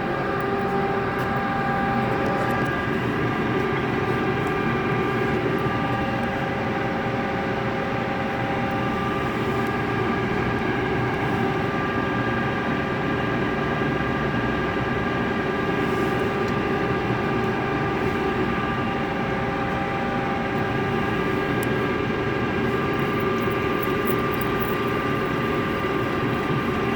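LeBlond engine lathe running at a steady speed: an even machine hum with a steady whine of several tones from the motor and headstock gearing.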